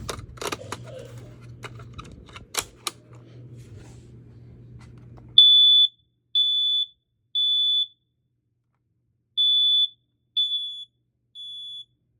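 First-generation Kidde i12060 smoke alarm sounding its test, pretty loud: a high beep in the temporal-three pattern, three half-second beeps about a second apart, a pause, then three more, the last two getting fainter. Before the alarm starts, about five seconds in, there are clicks and knocks of the unit being handled.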